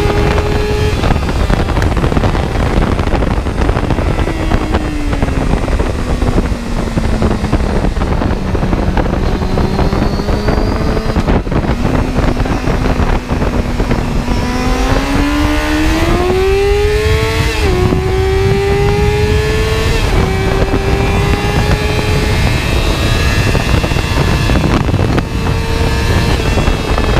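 A vehicle engine running continuously over a heavy low rumble, its note sinking slowly for the first ten seconds or so, then climbing from about 14 seconds in to a sudden drop in pitch near 18 seconds, after which it rises again and holds.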